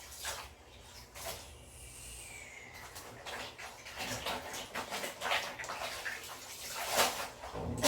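Laundry being washed by hand in a basin of water: wet fabric swishing and sloshing in repeated, irregular strokes, louder near the end.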